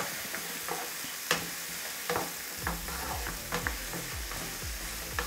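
Mixed vegetables sizzling in coconut oil in a nonstick frying pan as they are tossed with a spatula, with a steady frying hiss and a number of short knocks and scrapes of the spatula against the pan.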